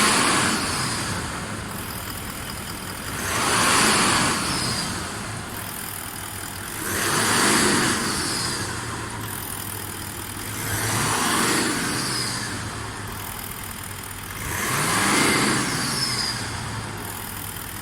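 Toyota 1VD-FTV V8 turbodiesel, fully warmed up, idling and then rising and falling in revs five times, evenly, about every four seconds. The regular rev cycles come during the injector code-learning procedure.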